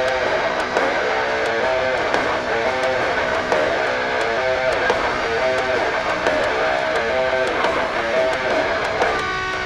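Background music: a guitar intro playing a run of picked and strummed notes, with no drums or bass.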